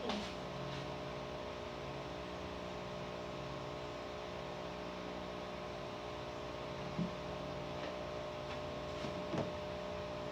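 Steady electrical hum made of several fixed tones, with a couple of faint soft knocks in the second half.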